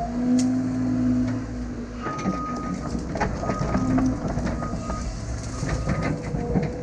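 Tracked heavy earthmoving machine running, its diesel engine a steady low rumble under irregular clanking and clicking of steel tracks, with short squeals from about two seconds in.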